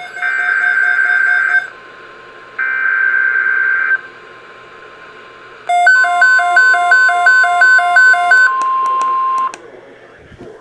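NOAA Weather Radio Emergency Alert System tones: buzzing SAME header data bursts, then the steady 1050 Hz weather radio alert tone. About halfway through, electronic alarm beeps pulse over it in a fast two-note pattern. The tones signal an incoming severe weather alert, here a severe thunderstorm watch.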